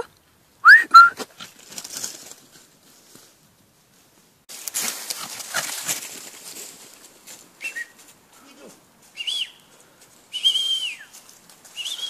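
Dry fallen leaves rustling as a French bulldog puppy moves through them. A brief rising high-pitched call comes about a second in, and a few short high-pitched calls come near the end.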